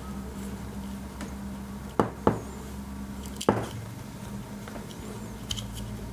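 Handling of a Swiss Army pocketknife: three sharp clicks, two close together about two seconds in and one more a second later, with a few faint ticks, over a low steady hum.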